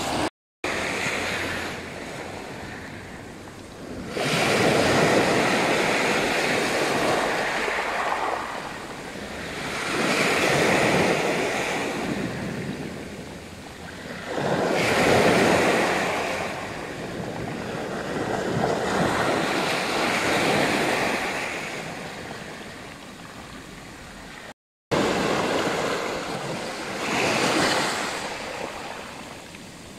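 Black Sea waves breaking on a pebble shore, each one swelling and washing back, about every five seconds.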